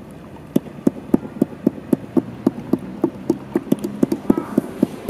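A steady drum beat: short, low-pitched strokes at an even pace of about four a second, the opening pulse of a music track.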